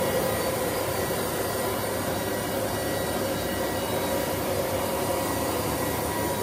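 Steady turbine whine over a constant rushing noise from a parked jet airliner running on the apron.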